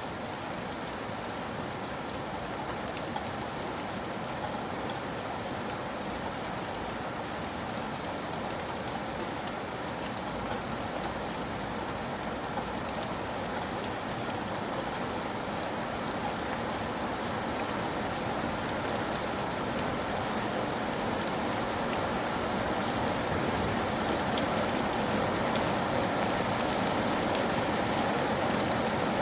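Steady rain falling, many fine drop taps over an even hiss, growing slightly louder over the stretch.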